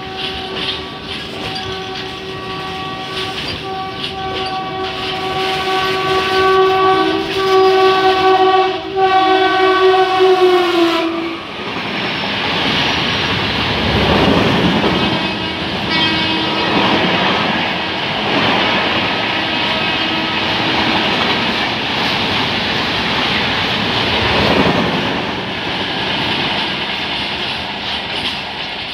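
An electric locomotive's horn sounds in one long blast of about eleven seconds, growing louder and dipping in pitch as it cuts off. Then the express train's coaches rush past at speed with a rhythmic clatter of wheels over the rail joints.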